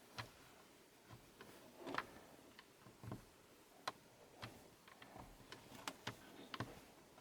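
Faint scattered clicks and taps, roughly one every half second to second, as fingers press a sticker overlay down onto a plastic dashboard button.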